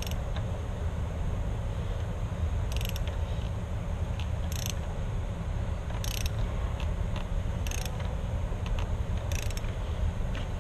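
Ratchet wrench being cranked on the door clamp's bolt, a short burst of ratchet clicks about every second and a half, over a steady low hum.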